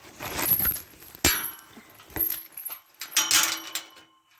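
A metal gate latch and its hardware clinking and rattling as a gate is fastened, with a few sharp knocks of metal on metal.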